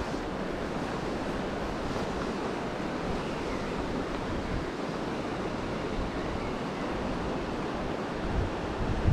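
Steady rush and ripple of a small river running high, with some wind buffeting the microphone.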